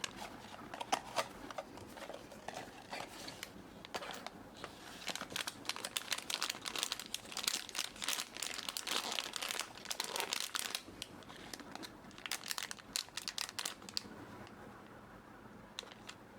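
Packaging crinkling and tearing, with dense crackly rustles as a Pop Mart blind box and its wrapping are opened by hand. The crinkling stops about two seconds before the end.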